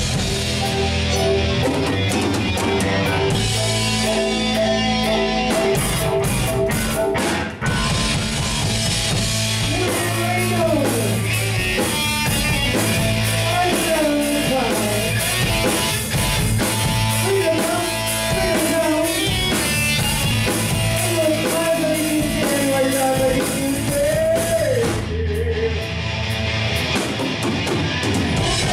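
Live rock band playing at full volume: electric guitars, bass and drum kit. A melody line that bends up and down comes in about ten seconds in.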